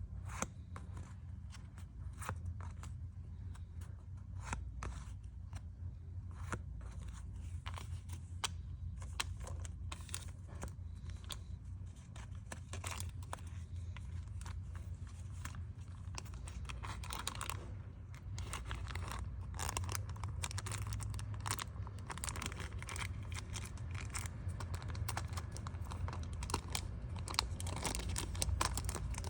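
Photocards being packed by hand: packing materials rustle and crinkle, with many small clicks and taps, over a steady low hum.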